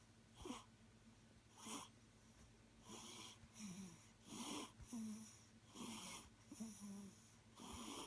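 A sleeping baby breathing noisily in snore-like breaths, each a soft rasp, many ending in a short low squeak. The breaths come slowly at first, then quicker, about two a second, from about three seconds in.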